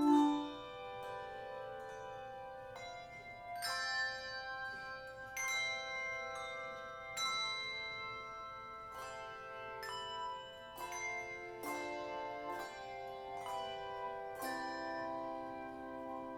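Handbell choir playing a piece: struck bells ring on in chords, with new notes coming every second or two.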